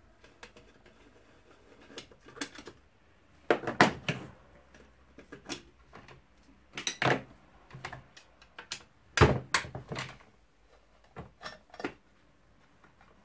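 Sharp knocks and clatters of chainsaw parts and hand tools being handled on a workbench during disassembly, in several short clusters with the loudest about four, seven and nine seconds in.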